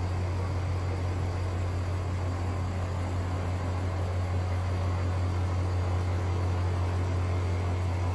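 Diesel-electric locomotive engine running with a steady low drone as the locomotive rolls slowly by.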